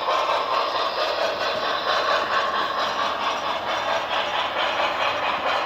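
Sound system of an HO-scale Broadway Limited Paragon4 New York Central 4-6-4 Hudson model locomotive playing steady steam chuffs as the model runs, with its mechanism and wheels clattering on the track. The chuff may be slightly out of step with the turning wheels.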